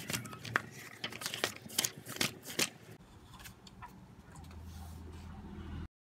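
Textbook pages being flipped through by hand: a quick run of paper flaps and rustles, then softer handling of the pages. The sound cuts off suddenly just before the end.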